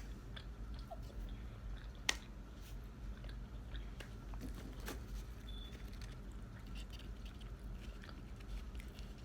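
A person chewing fast food close to the microphone, with scattered small wet mouth clicks and a sharper click about two seconds in and again about five seconds in.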